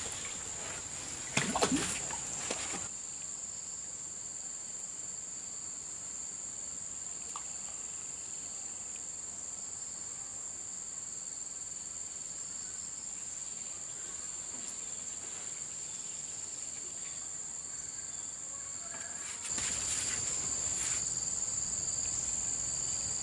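Steady, high-pitched insect chorus droning on one unbroken tone, with a brief louder noisy burst about two seconds in; near the end the insects suddenly grow louder.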